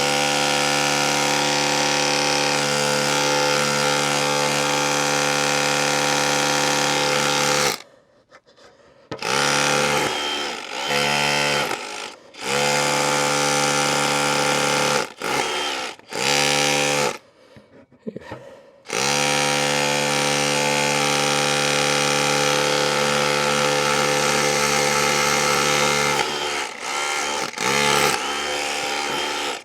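DeWalt DCH263R2 cordless rotary hammer running, hammering into the wall. It goes in long runs with several short bursts and brief stops partway through.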